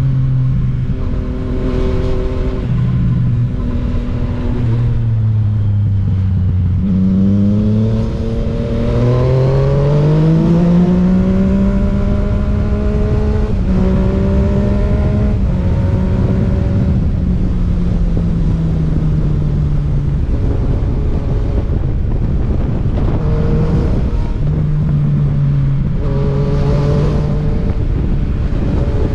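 Yamaha MT-09's inline three-cylinder engine through a Dominator HP3 aftermarket exhaust, heard while riding: the engine note drops off, then climbs steadily from about seven seconds in as the bike accelerates, holds, and eases back down, with wind and road noise underneath.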